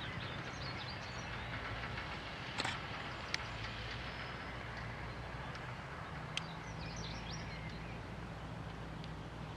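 Hyundai 170W-7A wheeled excavator's diesel engine running steadily, with a few sharp knocks: two close together about a third of the way in and one more past the middle.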